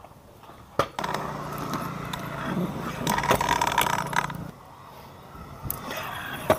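Freestyle stunt scooter's wheels rolling over rough concrete, a steady rumble that cuts off suddenly about four and a half seconds in as the scooter leaves the ground. A sharp clack near the end as it comes back down.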